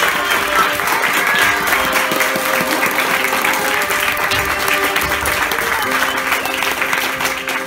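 An audience applauding, with many hands clapping, over music with held notes.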